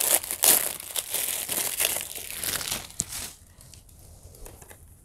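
Thin plastic shrink-wrap crinkling and tearing as it is peeled off a Blu-ray case, a dense crackle that stops about three seconds in.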